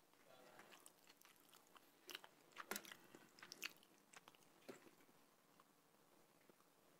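Faint wet chewing of jjajangmyeon noodles and seafood, close to a microphone: a scatter of soft smacking clicks, busiest and loudest about two to four seconds in.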